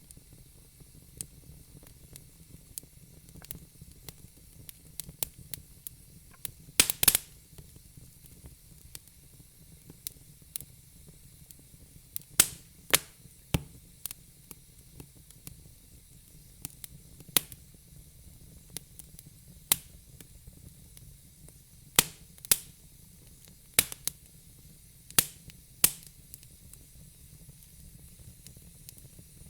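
Fire crackling: sharp pops at irregular intervals, a few of them loud, over a faint steady hiss.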